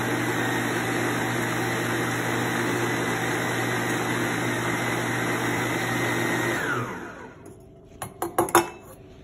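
Electric stand mixer running steadily as it beats pound cake batter, then switched off about seven seconds in, its motor winding down. A few sharp metal clinks follow as a small steel bowl is tipped against the mixer bowl to add an egg.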